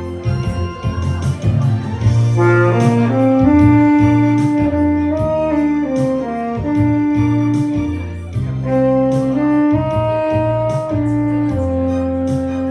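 Tenor saxophone playing a slow melody of long held notes over an accompaniment with a bass line and a steady beat.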